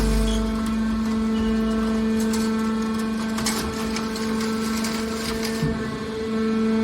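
Hydraulic metal baler running, its pump and motor giving a steady, even hum, with a few sharp metallic clicks about two and three and a half seconds in.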